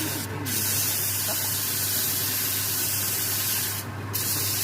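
Compressed-air hiss in long bursts, cutting off briefly twice as the trigger is let go, over a steady low hum.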